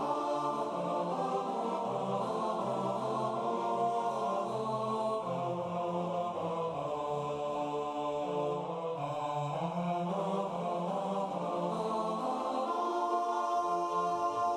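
Four-part male-voice a cappella harmony (two tenors, two basses) singing a barbershop arrangement in held, changing chords.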